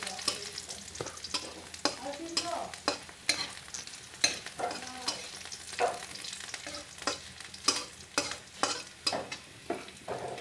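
Vegetables frying in a pan, sizzling, while a spatula stirs and scrapes against the pan in quick strokes about twice a second.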